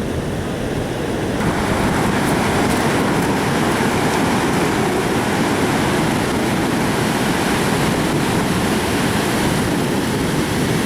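Ocean surf rushing steadily on the beach, with wind buffeting the microphone; the rush grows fuller about a second and a half in.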